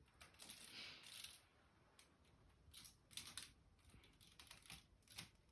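Near silence, with a few faint, short rustles and clicks.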